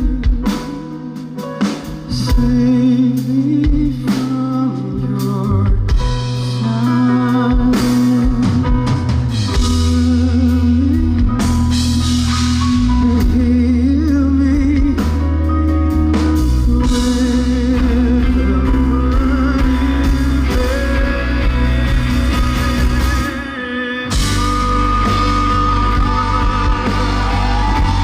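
Live band music with drum kit and bass under a sustained melody line, with singing at times. The music dips briefly about 23 seconds in, then comes back in full.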